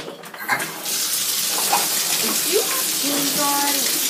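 Water running from a tap, a steady hiss that starts about a second in, with a few short pitched tones around three seconds in.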